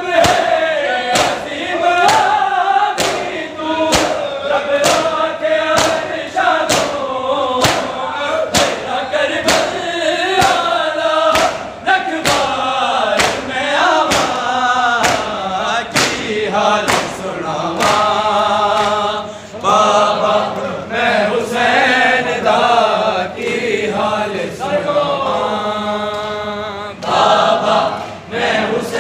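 Men chanting a Punjabi Muharram noha together, with some long held notes near the end, over rhythmic matam: open-handed slaps on bare chests in unison, a little faster than once a second.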